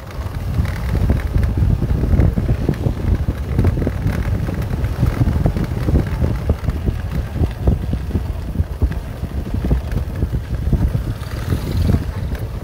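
Wind buffeting the microphone in a steady, gusty low rumble while riding a vehicle along a rough dirt road, with the vehicle's running and road noise underneath.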